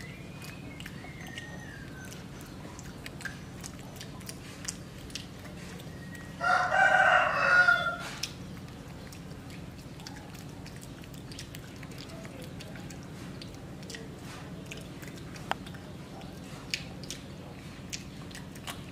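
One loud pitched animal call lasting about a second and a half, about six and a half seconds in, over a steady low hum and scattered faint clicks.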